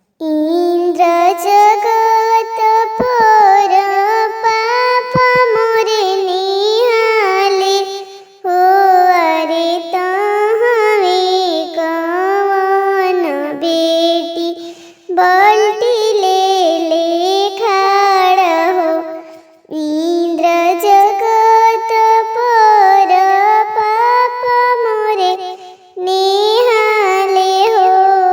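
A woman's high voice singing a Bhojpuri wedding song (vivah geet) in long, ornamented, melismatic phrases with short pauses for breath between them, with no instrumental accompaniment heard.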